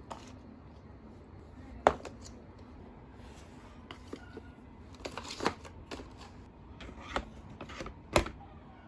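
Slime-making supplies being handled and set down in a cart: a few scattered sharp knocks and clicks, the loudest about two seconds in.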